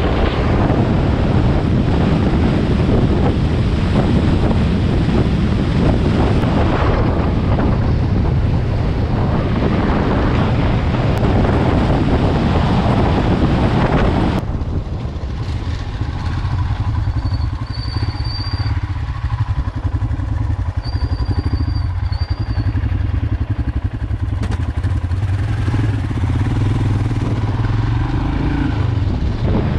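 Wind rushing and buffeting on the microphone of a moving motorcycle, over the low drone of its engine running at road speed. About halfway through the wind noise drops away abruptly, leaving the steady engine drone.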